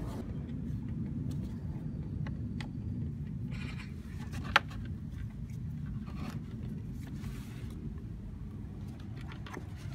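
Light clicks and handling noises of gloved hands adjusting a timing belt tensioner pulley, with one sharp metallic click about halfway through, over a steady low background rumble.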